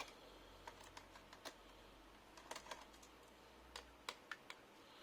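Near silence with faint, scattered small clicks and taps, some in quick pairs, from hands and small tools working on an opened laptop.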